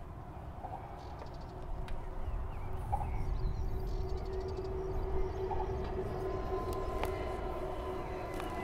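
An engine running steadily, its low rumble growing louder about two seconds in and holding a steady hum.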